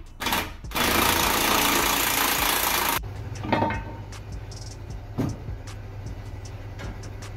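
Pneumatic impact wrench running in two loud bursts, loosening suspension and drive-shaft nuts. It stops about three seconds in, leaving a low steady hum and scattered metal clinks and knocks.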